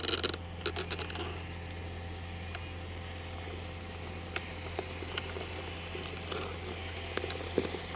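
1/14-scale electric RC articulated dump truck working, with scattered small clicks and crackles over a steady low hum; there is a cluster of clicks in the first second.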